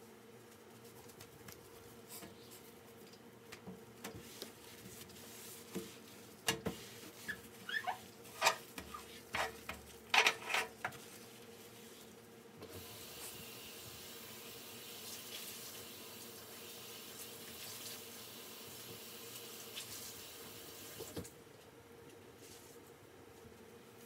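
Kitchen sink work: a quick run of clinks and knocks, like dishes or utensils handled in the sink, then the faucet runs steadily for about eight seconds and is shut off abruptly.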